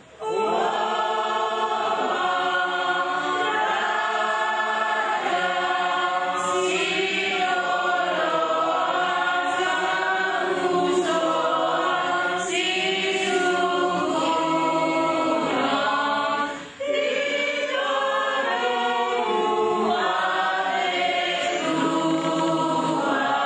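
A congregation singing a hymn together, many voices on long held notes, with a short break for breath about 17 seconds in.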